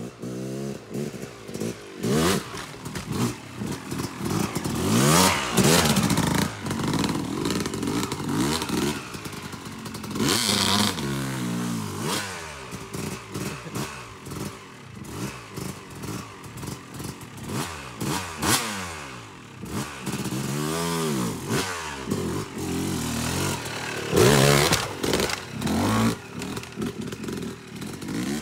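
Yamaha YZ250X two-stroke dirt bike ridden over logs, its engine revving up and dropping back again and again, with occasional knocks and clatter from the bike.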